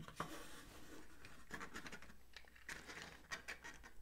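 Faint scrapes and light plastic taps as an epoxy syringe and a small cup are handled and slotted into a 3D-printed plastic stand.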